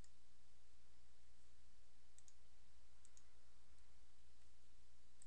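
Faint computer mouse clicks, a few quick pairs, over a steady low electrical hum.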